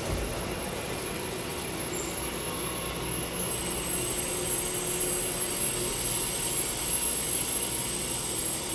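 Steady machine-shop noise of machinery running, with a thin high whine throughout and a second high whine joining about three and a half seconds in.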